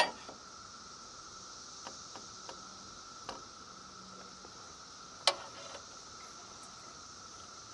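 A few scattered sharp clicks and knocks, the loudest about five seconds in, over a steady high insect buzz.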